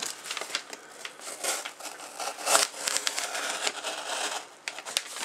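Knife blade slicing open a cardboard Priority Mail box, an irregular scraping and crackling of cardboard with small clicks and a louder rasp about two and a half seconds in.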